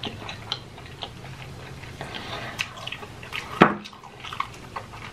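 Wet, clicky mouth sounds of chewing and smacking on a mouthful of king crab meat in spicy butter, with one sharp, louder sound about three and a half seconds in.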